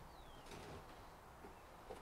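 Near silence: faint outdoor background, with one short, faint, high chirp that falls in pitch near the start.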